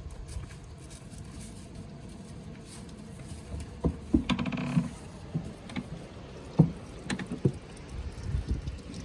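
Young kid goats moving about: a few scattered knocks and scuffs, with one short bleat about four seconds in.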